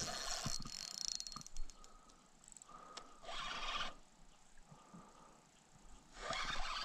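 Kayak paddle strokes: three splashy swishes of the blades through the water, about three seconds apart, with quiet lapping between.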